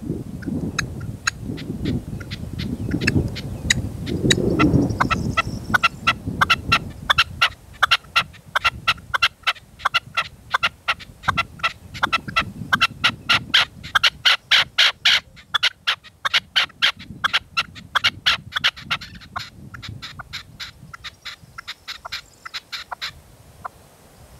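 Red-legged partridge calling: a long series of sharp, clipped notes that quicken to about four a second in the middle, then thin out and stop near the end. Wind buffets the microphone with a low rumble during the first few seconds.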